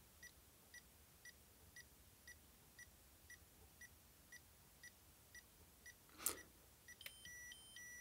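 Socket & See DIT 400 insulation tester beeping faintly about twice a second while it runs a 500-volt live-to-neutral insulation test. A click comes about six seconds in, and near the end a short run of stepped higher and lower beeps sounds as the test finishes.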